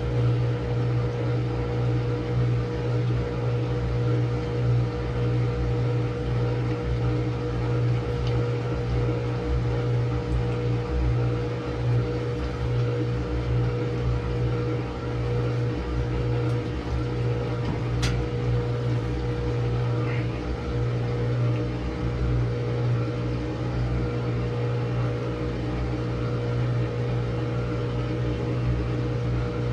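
Samsung washing machine in a long spin cycle: a steady motor and drum hum, with one sharp click partway through.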